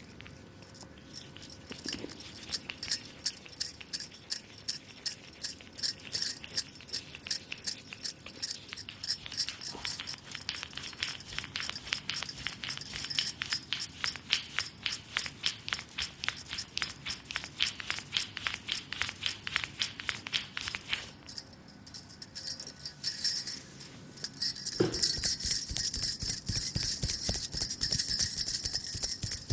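Hands giving a fast rhythmic percussive massage, several quick strikes a second with a light jingle. After a short pause near the end, this gives way to denser, steadier rubbing.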